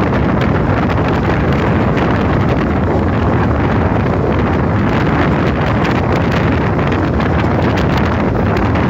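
Passenger train coach running at speed, recorded from an open window: a loud, steady rush of wind buffeting the microphone over the rumble and rattle of the coach on the rails.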